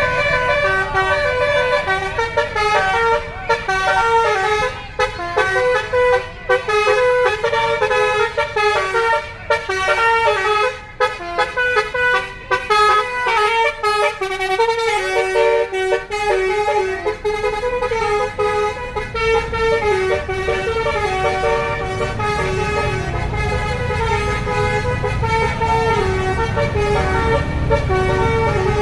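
Bus basuri telolet air horn playing a tune: a fast run of short stepped notes from a set of musical air horns, over a low rumble.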